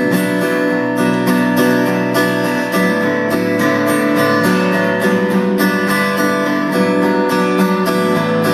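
Solo acoustic guitar strummed in quick, even strokes, with ringing chords and no voice.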